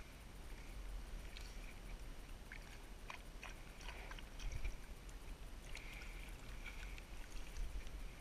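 Small water sounds around a plastic kayak hull: light sloshing and dripping, with scattered faint clicks and knocks from hands and gear on the hull, most of them in the middle and latter part.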